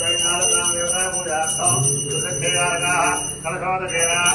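A puja hand bell rung continuously, its bright ringing steady throughout with a brief break a little before the end, while a man chants Sanskrit puja mantras over it.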